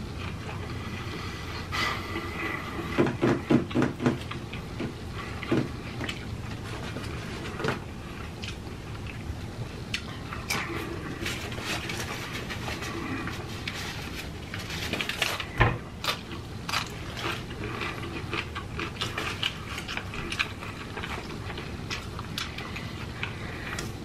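Close-miked eating sounds: chewing and lip smacking of crunchy-shell tacos and soft burritos, with sharp clicks scattered throughout, a quick run of about four loud chews a second around three seconds in, and the loudest click a little past the middle.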